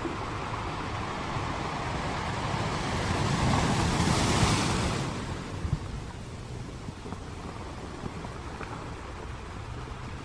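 Sea surf: a wave builds, breaks with a loud hissing wash about four seconds in, then recedes into a steady lower wash. Wind rumbles on the microphone throughout.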